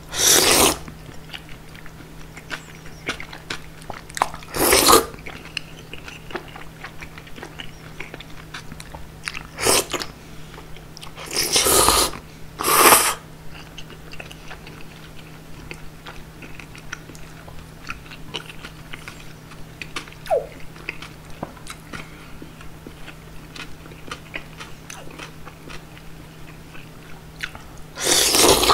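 Close-up slurping of kongguksu noodles from cold soy-milk broth: a loud slurp at the start, more at about five, ten, twelve and thirteen seconds in, and another near the end, with quieter chewing and small wet mouth clicks between.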